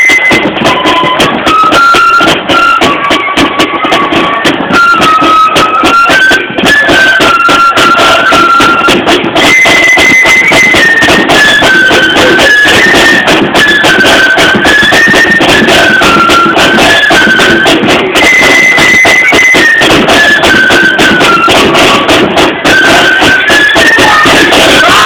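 Marching flute band playing a tune, the flutes carrying a high melody in unison over snare drums and a bass drum. The recording is loud.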